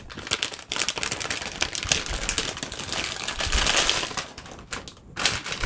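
Anti-static bag crinkling and rustling as it is pulled open and a Mini-ITX motherboard is slid out of it: a dense run of small crackles that thins out near the end, with one last short rustle.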